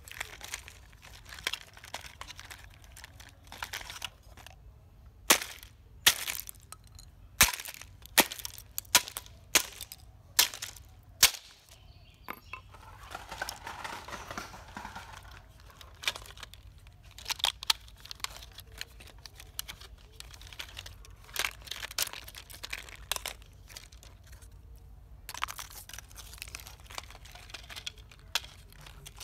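Hard plastic of a toy truck cracking and snapping as it is pried and broken apart by hand, with sharp, irregular clicks and knocks of pieces on concrete, loudest between about five and eleven seconds in. A few seconds of rustling noise about halfway through.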